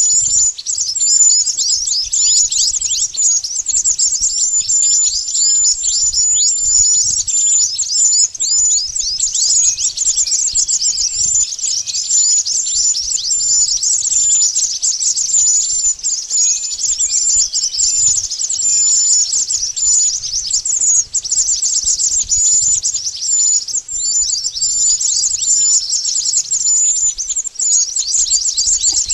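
Mantenan birds (Oriental magpie-robins) chirping rapidly and without pause: a dense stream of short, high, falling chirps, used as a lure call to attract the species.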